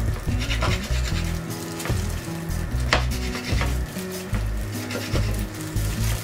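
Kitchen knife cutting through raw beef fat and knocking on a wooden cutting board: a series of short chopping taps with rasping cuts between them, the sharpest about three seconds in, over background music with a low bass line.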